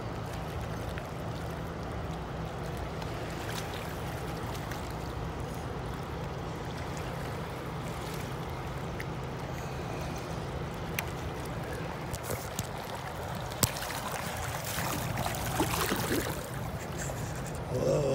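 River water lapping under a steady low hum. About two-thirds of the way in comes a short bout of splashing, a hooked fish thrashing at the surface near the bank.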